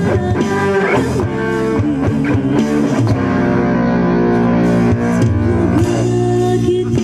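Live band playing an instrumental guitar passage without vocals: plucked guitar notes over bass, with a long held chord in the middle and bent notes near the end.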